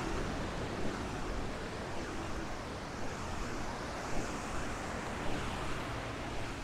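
Ocean surf breaking and washing up the beach in a steady rushing wash.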